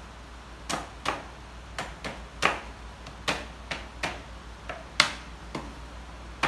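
Parts being fitted by hand into a black metal IKEA chair frame: an irregular run of about a dozen sharp clicks and taps.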